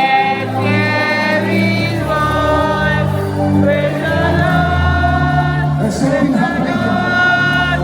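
Gospel worship music: a choir singing long held notes over a sustained bass line.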